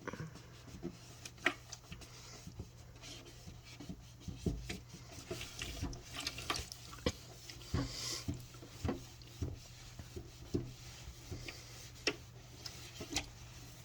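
Microfibre cloth rubbing and scrubbing grimy fridge parts, a rough rubbing sound broken by scattered light knocks and clicks as the parts are handled.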